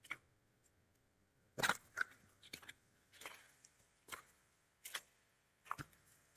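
Footsteps of boots on a bush walking track, a short crunch at walking pace, roughly one step every 0.8 seconds.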